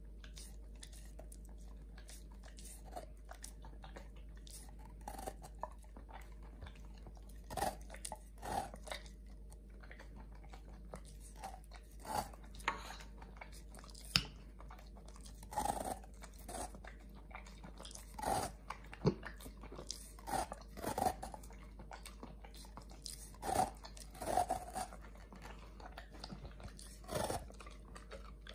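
A Doberman licking and chewing at a frozen strawberry ice pop: irregular short mouth smacks and crunches, few in the first seconds, then coming every second or so.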